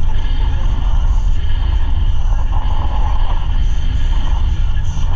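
A 4x4 driving along a gravel dirt trail: a steady, loud low rumble of engine and tyres on gravel.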